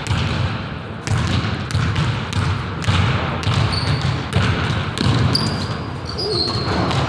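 A basketball bouncing on a hardwood gym floor, a run of dribbles, with a few short high squeaks in the middle.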